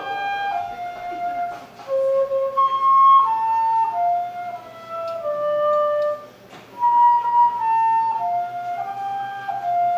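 Solo concert flute playing a slow melody, one held note at a time, with a brief pause a little past the middle.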